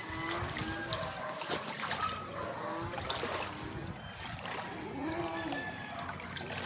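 Floodwater trickling and splashing during a typhoon, with many short rising-and-falling calls over it.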